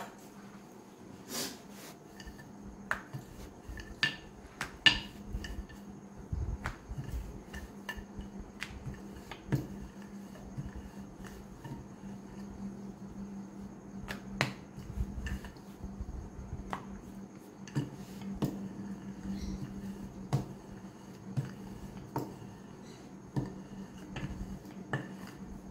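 Wooden rolling pin rolling out dough on a granite countertop: irregular light clicks and knocks as the pin and hands work the dough, over a steady low hum.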